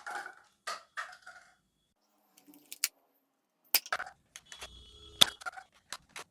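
Nerf Elite Disruptor blaster being primed and fired: a series of sharp plastic clicks and snaps from the priming slide, trigger and rotating six-dart drum, spaced irregularly. The loudest snaps come at the start and about five seconds in.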